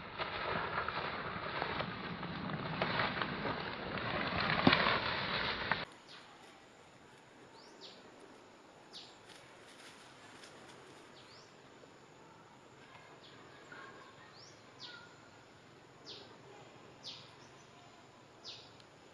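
Dry leaf litter rustling and crackling under footsteps close by for about six seconds. It then cuts off suddenly to quiet forest ambience with short high-pitched chirps every second or so.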